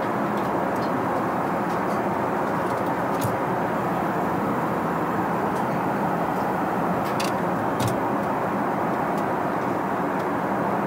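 Steady, even cabin noise of a Singapore Airlines Airbus A380 airliner, with a few light clicks about three seconds in and again around seven and eight seconds in.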